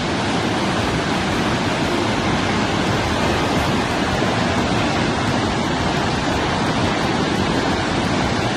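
A swollen river in flood, its fast water rushing in a loud, steady wash of noise.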